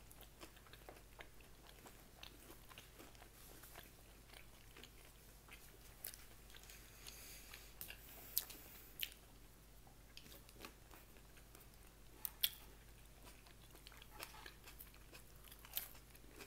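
A person chewing and biting food close to the microphone, a run of soft crackly mouth clicks with a few sharper crunches standing out.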